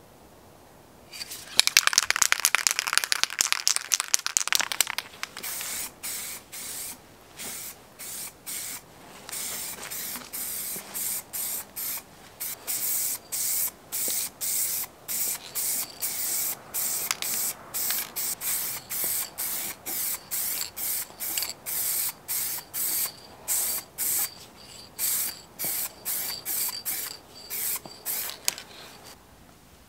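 Aerosol can of clear acrylic top-coat shaken hard, its mixing ball rattling loudly for a few seconds, then sprayed in a long series of short hissing bursts, about one or two a second.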